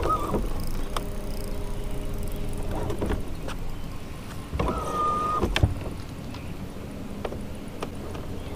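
Low rumble of wind and water around a bass boat, with scattered clicks and two short steady whines, about a second in and near the middle, from the spinning rod and reel during a fight with a hooked largemouth bass.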